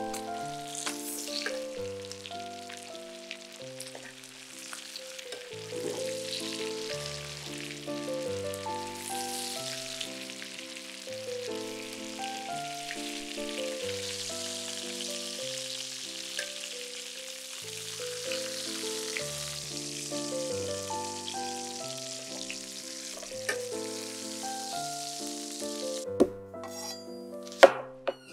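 Food sizzling in a hot frying pan, with instrumental background music playing alongside. The sizzling cuts off about two seconds before the end, and a sharp knock follows.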